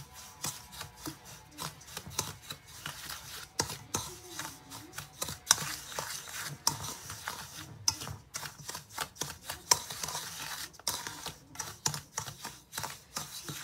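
A wooden spoon stirring dry semolina in a stainless steel bowl. The grain hisses as it moves, and the spoon clicks and scrapes irregularly against the metal.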